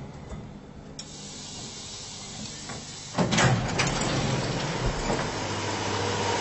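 A 1970s Otis lift car is arriving and its doors are sliding open. A quiet hum inside the car gives way to a rising hiss about a second in, then a sudden loud clatter about three seconds in, followed by steady louder noise.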